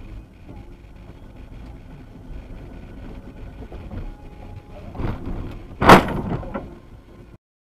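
Steady hum of a car driving, then a loud, sudden crash about six seconds in: a vehicle collision, with smaller knocks just before and after it.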